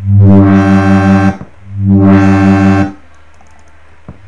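Native Instruments Massive software synth playing a bassy complextro patch: two held notes of the same pitch, each a little over a second long, with a fast pulsing wobble of about six to seven beats a second.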